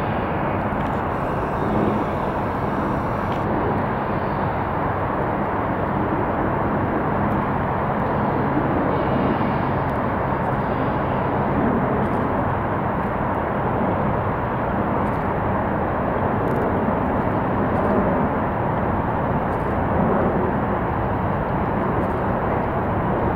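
Boeing 737-800's CFM56-7B turbofan engines running at taxi idle as the airliner taxis past, a steady, even noise with no change in power.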